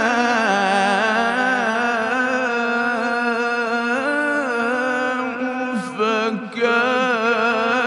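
Male Quran reciter's voice in melodic tajweed recitation, holding a long ornamented note whose pitch wavers and glides. There is a short break about six seconds in, then the line resumes.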